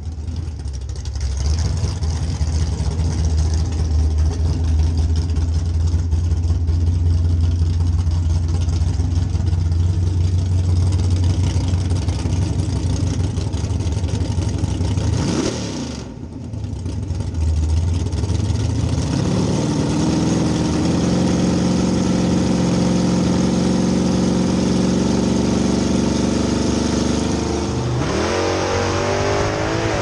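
Classic muscle car's engine running loud with a steady deep drone. After a short break about halfway, it is held at higher revs for staging. The pitch rises sharply near the end as the cars launch.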